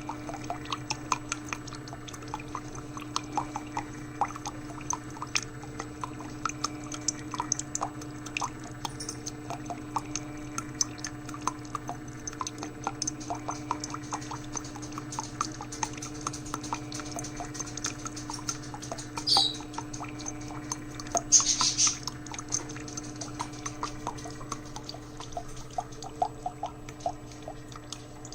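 A coffee maker brewing, with coffee dripping and trickling into a cup over a steady low hum from the machine. There are two brief hissing sputters about two-thirds of the way through. The machine is scaled up and due for descaling, so it brews slowly and short of its set amount.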